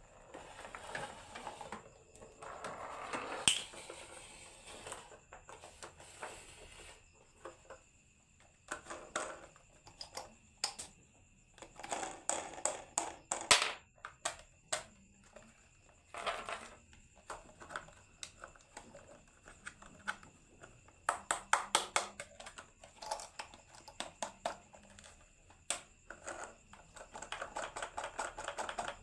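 Marbles rolling and clacking down a wooden HABA marble run, in irregular runs of rapid clicks and rattles.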